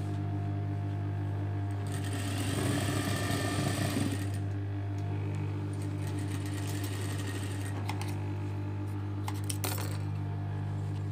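Industrial single-needle lockstitch sewing machine with a steady motor hum, stitching in a louder rattling run for about two seconds. Near the end there is a single sharp snip as the thread is cut with scissors.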